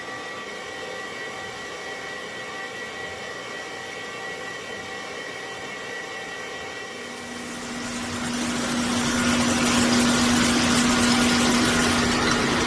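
CNC multi-tasking machining center running with a steady whine of several tones. About seven seconds in, a steady low hum sets in, then a loud hissing noise builds and holds as the machine goes to work.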